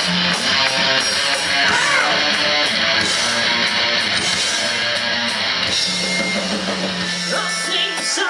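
Live rock band playing through a PA, with strummed electric guitars, bass and drums; the low bass note drops out about seven seconds in.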